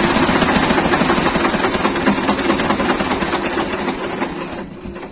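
Shifeng SF 138-2 diesel engine running with a fast, even beat. Its injection timing has been retarded by a thin shim under the injection pump to stop it knocking. The sound fades and drops away near the end.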